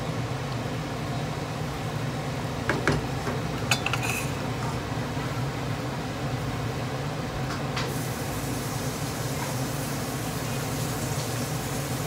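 Chicken pieces frying in a pan of browned sugar over high heat, sizzling steadily over a constant low hum. A spatula knocks and scrapes against the pan a few times around three to four seconds in, and once more near eight seconds.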